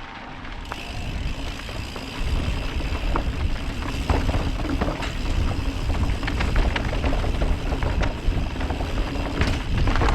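A bike riding down a rocky trail: a steady low rumble of wind on the microphone, with frequent clattering knocks as the tyres and frame hit rocks. The rumble builds up about two seconds in.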